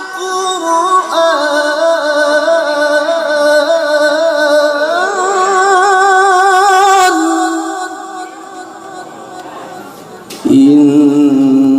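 Quranic recitation (tilawah) by a male qari: a long, high melismatic phrase with wavering, ornamented held notes, which fades out about seven seconds in. A new, lower phrase starts loudly about ten and a half seconds in.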